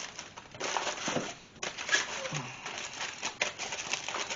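Aluminium foil crinkling and crumpling in irregular rustling bursts as it is folded around a ham, with a brief low murmur of a voice about two seconds in.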